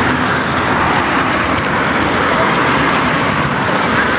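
Steady rushing wind and road noise of a moving bicycle, picked up by a camera fixed to the handlebar, with traffic noise mixed in.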